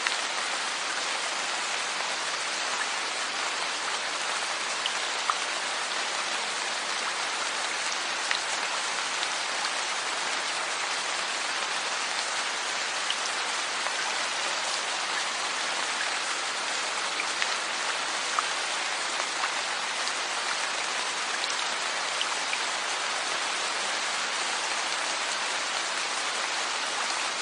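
Steady rain falling: a dense, even patter with a few sharper single drops standing out now and then.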